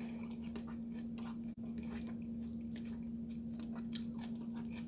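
A person chewing a mouthful of food close to the microphone, with mouth closed: many small, irregular wet clicks. A steady low hum runs underneath.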